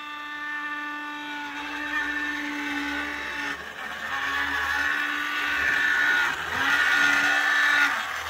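Motor and gears of a Bachmann Baby Trainmaster Fairbanks-Morse model locomotive running with a steady whine that drops out briefly a few times. It is a motor that had been seized and is still making weird noises, which the owner takes for a locomotive that was never broken in.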